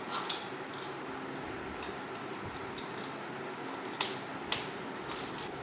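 A few light metallic clicks and ticks over a steady background hum as a worn, loose motorcycle timing chain is handled and drawn out of the engine.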